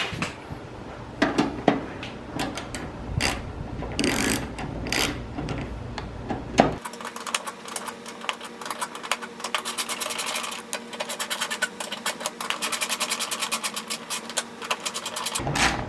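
A few scattered metal clanks, then a ratchet wrench clicking in a long, rapid, even run as a bolt is turned and snugged down.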